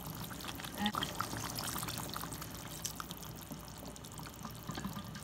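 Water being poured into a pan of chicken curry, a splashing trickle into the liquid sauce.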